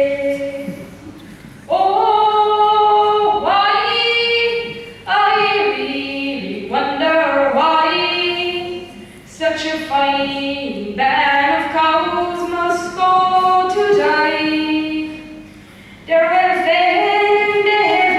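A boy singing solo and unaccompanied into a microphone, holding long notes. He breaks briefly for breath about a second in and again about two seconds before the end.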